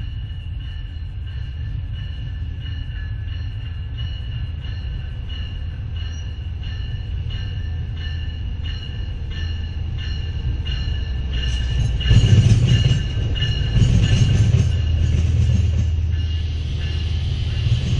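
Amtrak passenger train led by a Siemens Charger diesel locomotive arriving to stop at the station, with a bell ringing steadily at about two strokes a second. The low rumble of the locomotive and the rolling cars grows suddenly louder about twelve seconds in as the train draws alongside.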